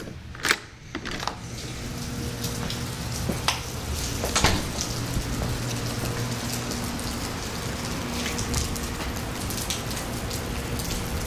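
Thunderstorm rain pouring steadily, swelling over the first couple of seconds, with a few sharp drop impacts now and then.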